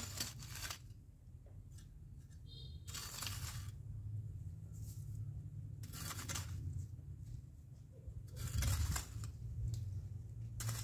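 Long-handled hand tool chopping and scraping into dry, stony soil: four short, gritty strokes about every two to three seconds, the one near the end the loudest, over a steady low rumble.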